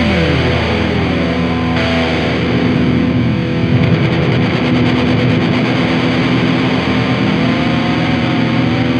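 Heavy metal recording with loud distorted electric guitars over a steady low end. Guitar notes slide down in pitch about a second in and bend upward near the end.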